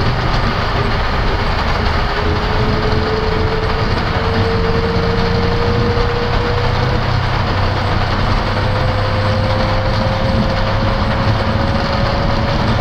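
Boeing 737 MAX at takeoff thrust accelerating down the runway, heard in the cockpit: a steady loud rumble and roar of the CFM LEAP-1B engines, wheels and rushing air, with one tone climbing slowly in pitch as speed builds.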